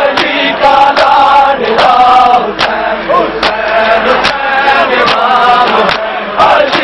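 A crowd of men chanting a mourning lament in unison while beating their chests together in time. Sharp hand-on-chest slaps land about once a second, with the chant's long held notes between them.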